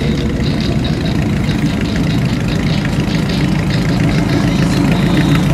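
Motor vehicle engine running at low speed with a steady low rumble, a little louder near the end as it draws closer.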